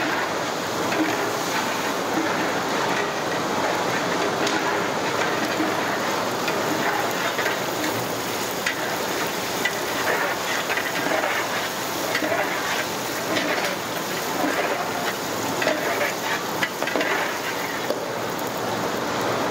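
Long iron ladle stirring water in a large aluminium cooking pot, splashing and clinking against the metal over a steady hiss.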